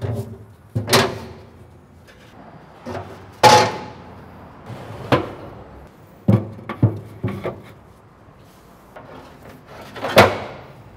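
Steel parts of a Yoder YS640 pellet grill being set back into the cook chamber: a string of about nine metal clanks and knocks as the cooking grates are dropped into place. The loudest comes about three and a half seconds in with a brief ring, and another loud one near the end.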